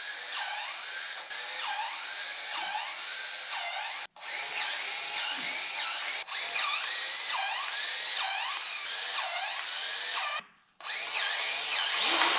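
DeWalt 20-volt cordless grease gun running continuously, pumping grease into the backhoe's pivot fittings. Its motor whine dips and recovers in pitch over and over as each piston stroke pushes against the fitting. It cuts off abruptly a few times and gets louder near the end.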